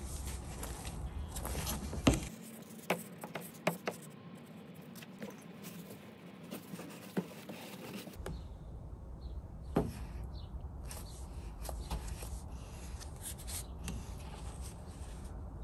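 A paintbrush dabbing and scraping in a plastic dish of polyurethane and wiping on a paper shop towel, with a few sharp clicks and taps; the loudest comes about two seconds in. A low background hum stops about two seconds in and returns about halfway through.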